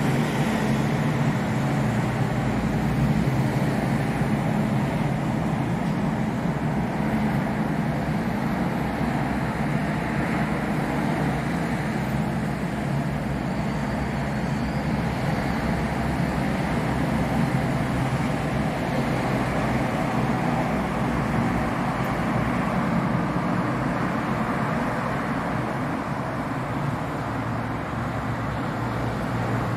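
Steady city traffic noise: cars running along a multi-lane road, with no single vehicle standing out.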